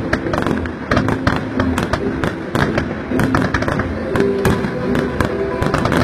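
Aerial fireworks going off in a dense, irregular run of bangs and crackles, several reports a second with no pause.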